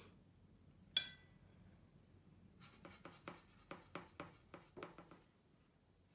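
Faint handling of watercolour painting tools. About a second in there is one sharp, briefly ringing clink of something hard against a dish or jar. From about two and a half seconds in comes a run of about ten quick, light taps, roughly four a second.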